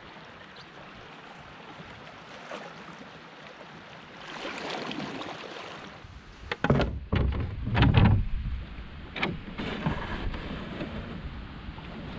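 A canoe being paddled: a steady rush of water and wind, swelling with a stroke, then a loud cluster of knocks and thumps past the middle, with a few single knocks after.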